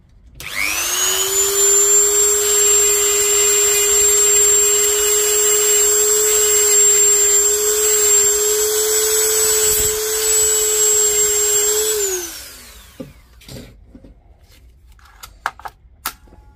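Small handheld electric rotary power tool spinning up, running steadily with a high whine and a rough scrubbing noise for about twelve seconds, then winding down: cleaning a rough, dirty edge on a battery cell contact so that it makes a better electrical connection.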